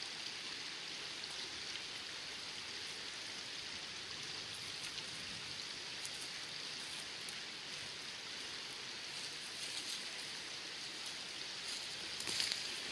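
Steady rushing of a river flowing past the wooded bank, with a few rustling footsteps in dry leaf litter close by near the end.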